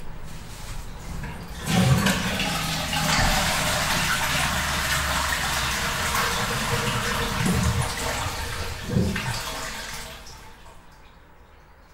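Toilet flushing: a sudden rush of water about two seconds in that runs for several seconds and dies away near the end.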